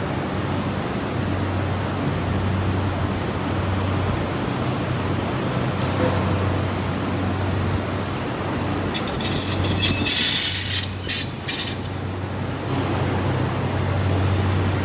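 CNC roll bending machine running with a steady low hum. About two-thirds of the way in, a loud, high metallic squeal lasts about three seconds and then stops.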